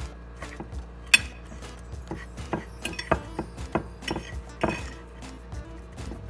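A metal fork tapping and clinking against a dish at an irregular pace while chicken strips are worked in breadcrumbs, with a sharp knock about a second in.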